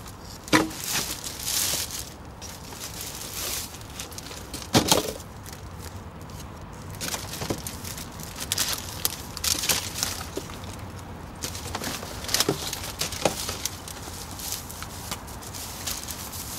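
Plastic bags and foil wrappers crinkling and rustling as rubbish is handled, with a few sharp knocks, the loudest about five seconds in.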